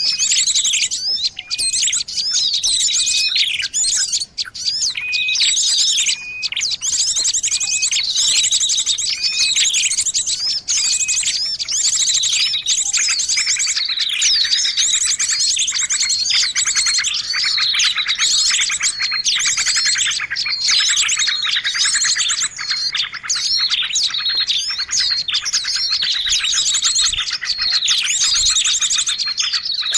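Bird-lure recording: dense, continuous chirping and fast trills from several birds calling over one another. It grows busier about halfway through.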